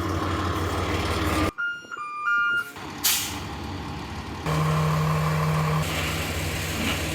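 Dump truck engine running with a steady low drone, a short sharp hiss of air about three seconds in, and the engine note getting louder about halfway through.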